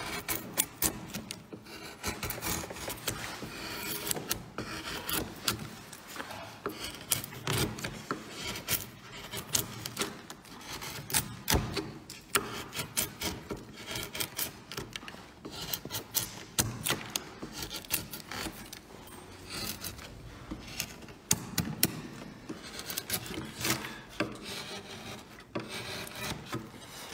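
Hand wood carving: chisels and gouges cutting into wood in many short, irregular scraping strokes, with sharp clicks of steel on wood.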